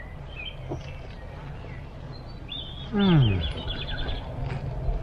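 Songbirds chirping, with a quick trill near the middle. About three seconds in, a man gives a low, falling 'mmm' of enjoyment while chewing a bite of sausage burger.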